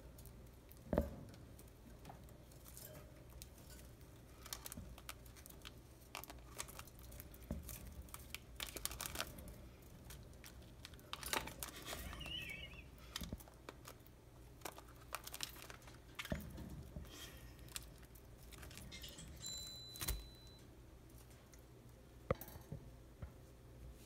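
Budgerigars busy in their cage: scattered light clicks, taps and rustling from beaks and feet on perches, bars and toys. A brief high whistle comes late on.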